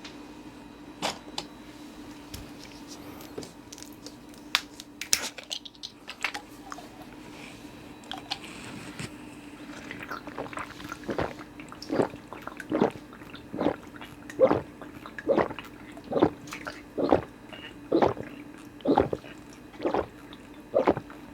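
A few clicks and crackles, then a person chugging a sports drink from a 1.5-litre bottle: loud, close swallowing gulps coming steadily about once a second from about halfway through.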